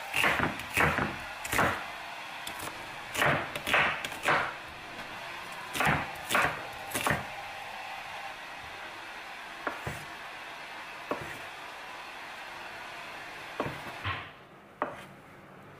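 Chef's knife cutting through onion and striking a wooden cutting board: sharp knocks of the blade on the board in quick groups of two or three through the first half, then fewer and fainter ones. Near the end the knife cuts tofu sausage into chunks.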